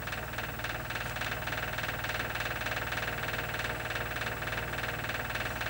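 Steady mechanical hum with a fast, even flutter and a few faint steady tones, from machines running in the room.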